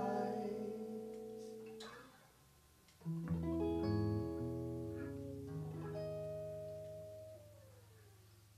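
Closing chords of a live band song. A held chord fades out, then about three seconds in a guitar chord is struck over deep bass notes and left to ring and slowly die away, with one note sliding downward near the end.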